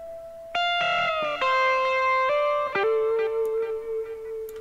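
A recorded lead guitar solo playing back. A held note fades, then a quick run of notes with a downward bend follows, and the phrase ends on a long sustained lower note.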